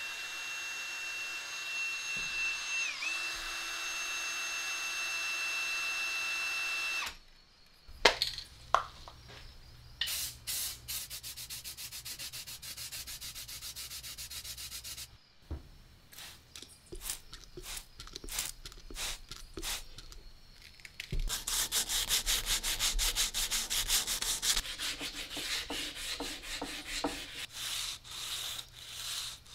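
A cordless heat gun runs with a steady whine for about seven seconds, its pitch dipping briefly once, then cuts off. After that come spells of rapid back-and-forth rasping, and a longer, louder bout near the end as a file is worked along the edge of a cast iron part.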